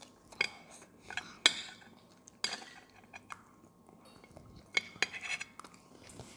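Metal spoon clinking and scraping against a plate and bowl: a string of sharp, irregular clinks, about eight in all.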